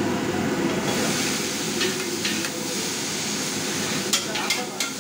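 Thin noodles being stir-fried in a large steel wok: a metal spatula and ladle scrape and clink against the pan over a steady frying hiss. There are sharp clinks about two seconds in and a quick run of them near the end.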